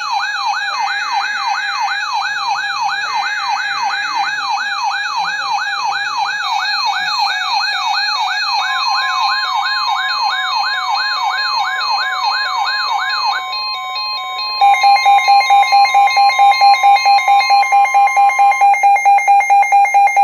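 Electronic alert sirens: a fast up-and-down wailing sweep repeating about two and a half times a second, replaced after about 14 seconds by a rapidly pulsing alarm tone. Under them, starting about 9 seconds in, a steady single tone holds for about ten seconds: the weather radio warning alert tone.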